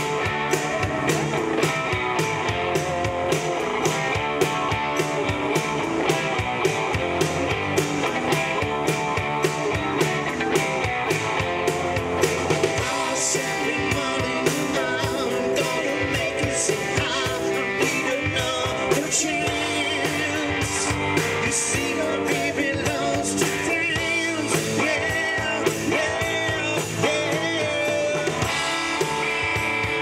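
Rock band playing live: drum kit keeping a steady beat under electric bass and electric guitars, with a singer on the microphone.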